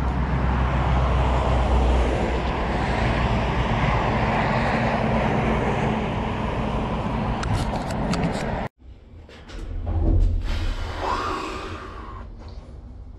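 Wind rumbling on the microphone of a camera on a moving bicycle, with road traffic, while riding across a bridge. It cuts off abruptly about eight and a half seconds in and gives way to a quieter low hum inside a passenger lift, which swells and then fades.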